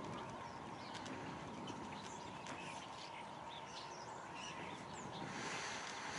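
Faint outdoor ambience with scattered short bird chirps, and a brief rush of noise near the end.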